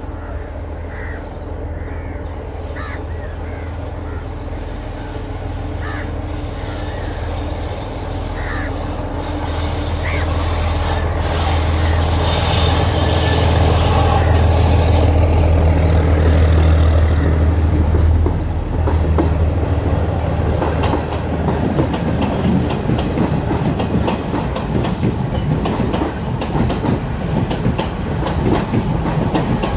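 A diesel multiple unit train approaches on a curve and passes close by. Its low engine drone grows louder to a peak just past halfway, with a high wheel squeal on the curve through the first half. The coaches then clatter over the rail joints in the second half.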